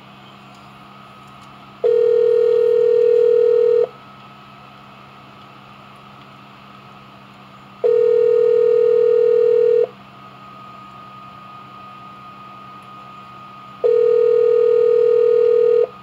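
Telephone ringback tone: the called line ringing, three steady two-second rings about six seconds apart.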